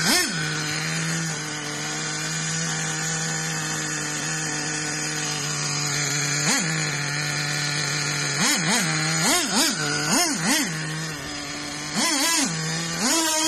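Zircon nitro RC monster truck's small two-stroke glow engine running at a steady idle and blipped on the throttle in short revs: one at the start, one about six and a half seconds in, a quick run of about six between eight and eleven seconds, and two more near the end. The engine runs well, though the truck's spur gear is stripped.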